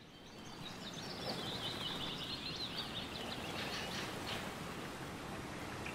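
Outdoor ambience fading in: a steady background hiss with birds chirping rapidly, most busily in the first few seconds.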